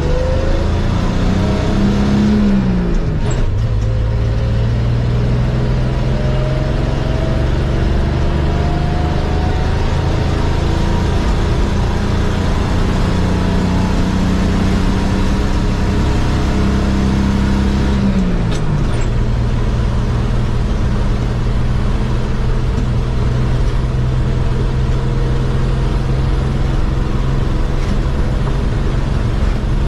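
1963 Chevy C10's 235 straight-six accelerating hard, heard from inside the cab, its pitch climbing steadily in each gear. The pitch falls sharply at two upshifts, about three seconds in and about eighteen seconds in.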